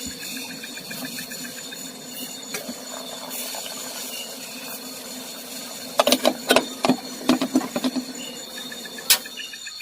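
Night insects chirring with steady high-pitched tones and short repeated chirps. About six seconds in, a quick run of sharp clicks or knocks lasting two seconds, then one more near the end.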